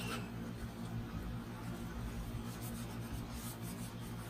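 A cloth wiping and rubbing on the glass sheet inside a resin 3D printer to clean off tape residue, heard as faint scratchy rubbing over a low steady hum.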